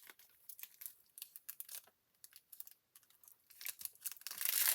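Packaging being handled, crinkling and rustling in short crackles that grow denser and louder near the end.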